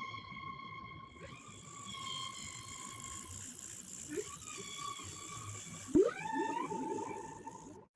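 Whale song: long drawn-out calls with overtones held for several seconds, then a sharp upward sweep about six seconds in that settles into a lower held note, with short low rising chirps between, over a steady high hiss.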